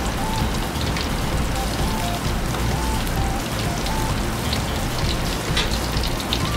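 Chicken karaage deep-frying in hot oil in a wok: the oil sizzles and crackles steadily and densely around the pieces.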